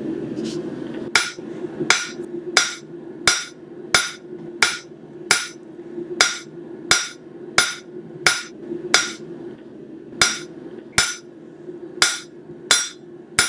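Hand hammer striking hot stainless steel on an anvil in a steady rhythm of about three blows every two seconds, each blow ringing, as the knife blade's edge is drawn out thin. A steady low hum runs underneath.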